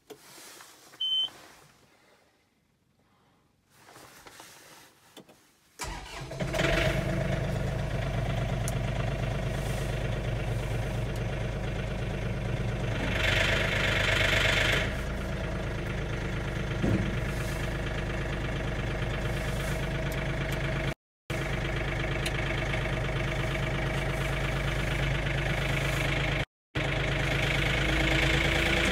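John Deere 3046R compact tractor's diesel engine being started from inside the cab: a short warning beep about a second in, a few seconds of quiet cranking, then the engine catches about six seconds in and settles into a steady idle.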